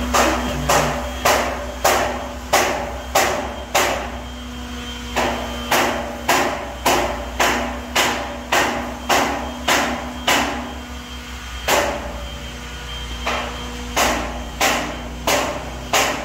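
Hammer blows struck at an even pace, about one and a half a second, in runs with two short pauses, over a steady machine hum.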